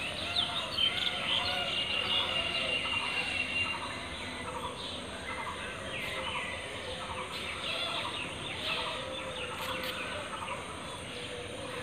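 Many small birds chirping and calling over steady background noise, with a thin steady high whine during the first few seconds.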